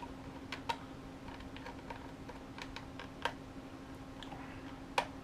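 Scattered small plastic clicks and taps from handling and fitting drone and tracker parts, the sharpest about three seconds in and near the end, over a faint steady hum.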